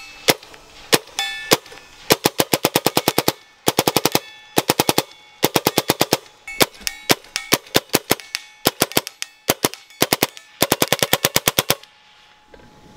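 Belt-fed, full-auto .22-calibre air rifle powered by high-pressure air, firing pellets: three single shots, then a string of short bursts at about ten shots a second. A brief ringing tone follows some of the shots. The firing stops about a second before the end.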